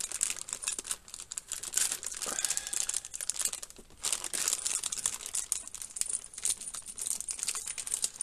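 Plastic bags of monitor-mount screws crinkling and rustling as they are handled and searched through, a continuous crackle with a few short pauses.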